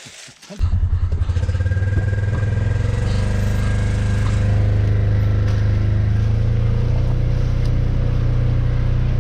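Vehicle engine starting abruptly about half a second in, then running steadily with a slight rise in level around the middle.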